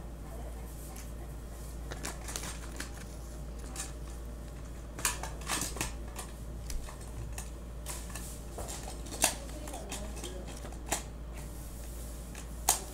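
A folded paper collector's guide leaflet being unfolded and handled: rustling and crinkling paper with a few sharp clicks, busier in the second half.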